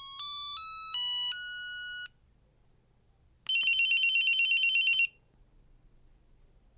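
Samsung SGH-R225 mobile phone ringtones from its speaker: a simple beeping tune of stepped notes, one at a time, ends about two seconds in. After a short pause a fast, high warbling ring trill, around ten pulses a second, plays for about a second and a half.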